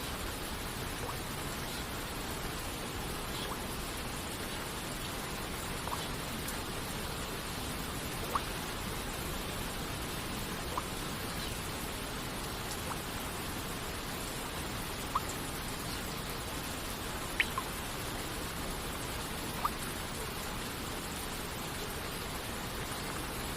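Steady, even hiss of rain and falling water, with single water drops plinking here and there, about six of them over the stretch, the loudest two close together near the end.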